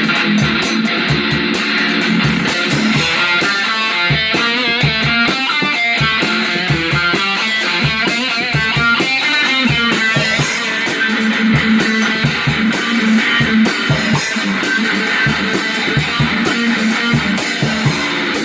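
Music led by guitar over a steady beat of drums.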